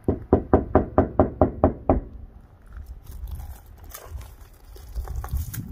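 Knuckles knocking rapidly on the door of a plastic portable toilet: about nine quick raps in two seconds. A few fainter clicks follow later.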